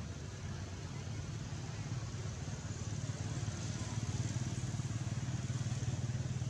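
A steady low motor rumble with a faint hiss over it, growing a little louder about halfway through.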